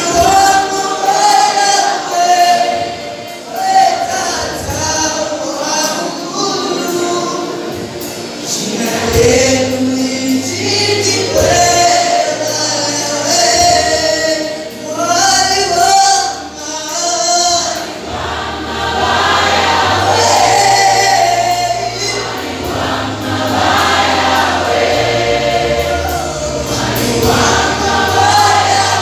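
Gospel choir singing, with a young male lead vocalist singing into a handheld microphone. Low held notes change step by step under the voices.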